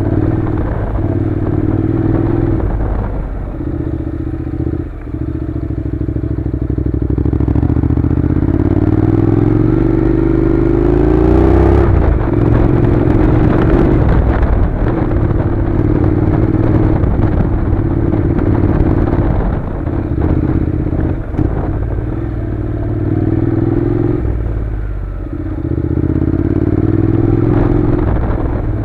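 Honda NC700's parallel-twin engine running under way on a gravel track. Its note climbs for a few seconds as it accelerates, drops sharply about twelve seconds in, and eases off briefly a few times, with loose stones clattering under the tyres.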